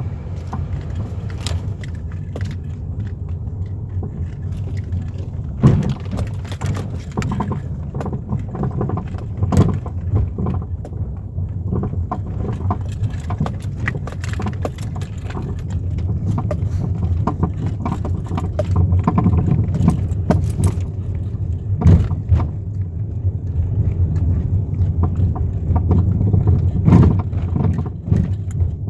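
Chevrolet Lacetti on the move, a steady low road rumble with irregular sharp knocks from the front suspension. The knock is of unknown cause: the stabilizer links, ball joints and tie rods are new.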